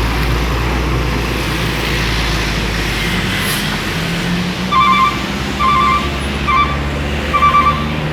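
Hino truck's engine running steadily, then from about five seconds in a telolet horn toots in short repeated bursts, about one a second, louder than the engine.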